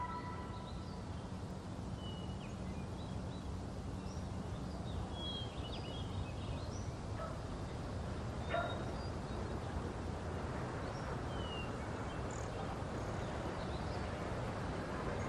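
Outdoor ambience: a steady low rumble and hiss with scattered faint bird chirps, and one short soft thump a little past halfway.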